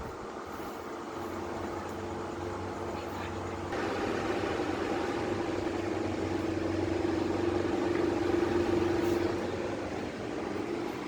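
A steady mechanical hum with a low drone and a held tone, which gets louder about four seconds in.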